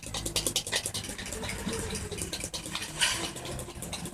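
A utensil stirring a raw egg in a container: quick, rapid clicks and scraping as it whisks the liquid egg round.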